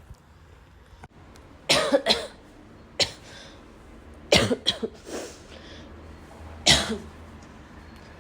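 A person coughing repeatedly in short groups: a double cough about two seconds in, a single one at three seconds, a quick run of three around four and a half seconds, and one more near seven seconds.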